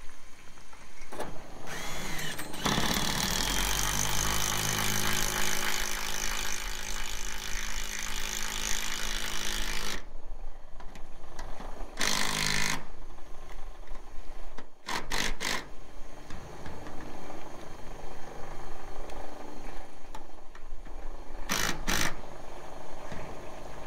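Cordless drill driving screws into corrugated steel roof sheeting: one long steady motor run of several seconds, then three short bursts, over steady wind noise.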